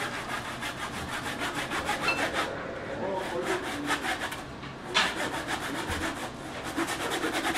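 Long tuna knife sawing back and forth through the skin and flesh of a whole giant tuna, in rapid, even rasping strokes, about four or five a second. A sharp click about five seconds in.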